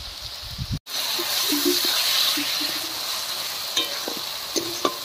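Sliced onion, capsicum, tomato and green chillies sizzling in oil in a metal wok while a steel spatula stirs them, with a few sharp clinks of the spatula on the pan near the end. This is the vegetable base for a chicken curry frying before the ground spices go in. The sound cuts out for a moment just under a second in.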